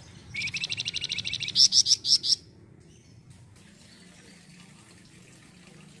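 A flamboyan songbird singing one phrase: a fast trill of about a dozen notes a second, then four or five louder, higher-pitched notes, stopping about two and a half seconds in.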